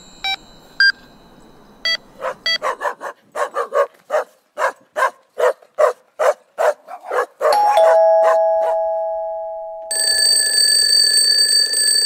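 A sequence of sound-effect samples. It opens with a few short electronic interface beeps, then comes a run of rapid animal calls, about three a second, much like a dog barking. A held two-tone chime follows, and from about two seconds before the end a steady electronic alarm tone.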